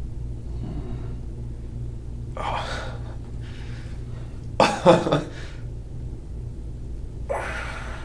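A man gasping in pain three times, the loudest gasp about halfway through turning into a voiced groan, as deep pressure is worked into a tight muscle knot under his arm. A steady low hum runs underneath.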